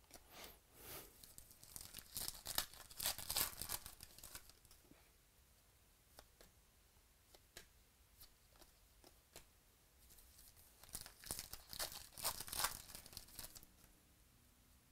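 Chronicles baseball card packs being torn open by hand, with the wrappers crinkling. The tearing comes in two stretches, one in the first few seconds and another about ten seconds in.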